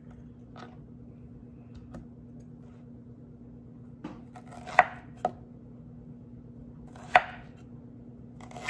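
Chef's knife slicing through zucchini and knocking on a wooden cutting board: a handful of separate cuts, the two loudest about five and seven seconds in, over a faint steady hum.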